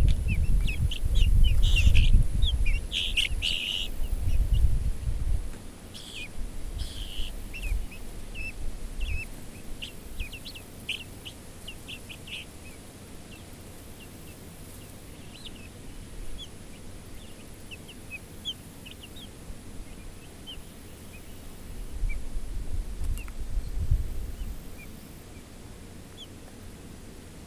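A flock of young poultry peeping with many short, high chirps, thick at first and thinning out later. A low rumble on the microphone is loudest in the first five seconds and comes back briefly near the end.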